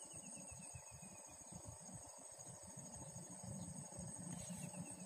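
Faint insect chorus, a steady high-pitched drone, over a low uneven rumble.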